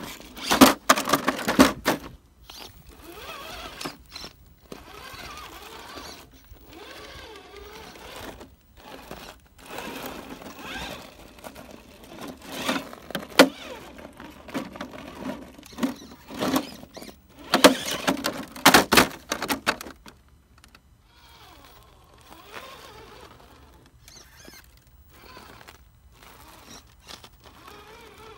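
Traxxas TRX-4 Sport RC crawler climbing over concrete rubble: its electric motor and gears whine in spurts while the tires and chassis knock, scrape and clatter on the concrete. The loudest bouts of knocking come at the start and again about two-thirds of the way through.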